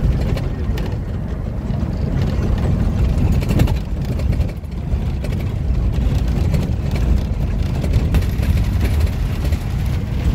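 Safari vehicle driving over a dirt track, heard from inside the cabin: a steady, heavy low rumble of engine and road noise.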